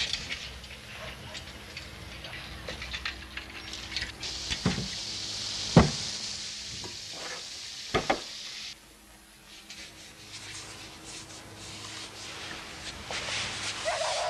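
Plates set down on a kitchen table with a few sharp clinks, over a steady hiss from a steaming pot on the stove. The hiss stops suddenly about two-thirds of the way through, leaving fainter scattered clicks.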